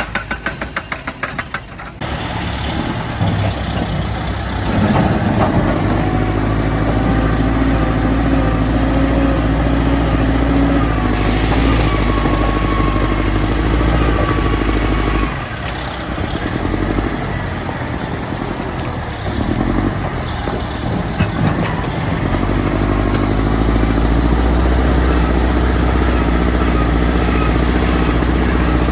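Heavy diesel machinery engine running steadily under load. A rapid clattering rattle of about ten strokes a second is heard in the first couple of seconds, and a higher tone wavers up and down about midway.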